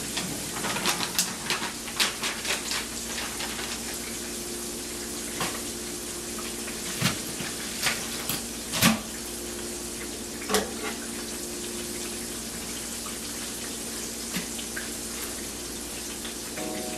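Food frying in a pan: a steady sizzle with scattered pops and crackles, densest in the first few seconds, with a few louder pops later on.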